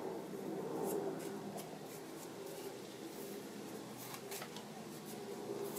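Faint rustling and a few short scratchy sounds from cheesecloth being pulled apart and stretched by hand, over a low steady hum.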